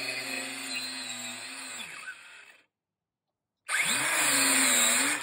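Dremel cordless compact circular saw running as it cuts into OSB. About two seconds in the motor winds down and stops. After a second of silence it starts up again, rising in pitch, and runs loudly.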